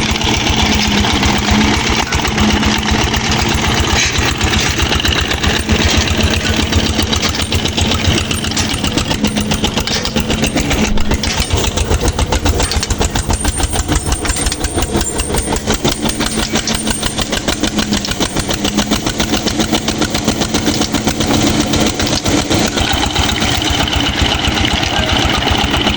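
Old engine running steadily at an even speed, with a rapid, regular beat.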